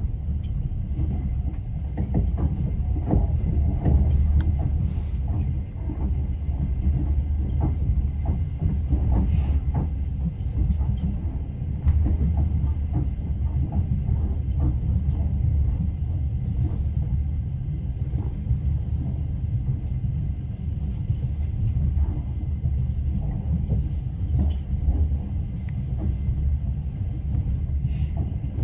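Passenger train running, heard from inside the carriage: a steady low rumble from the wheels and rails with scattered knocks and clicks of the wheels over the track.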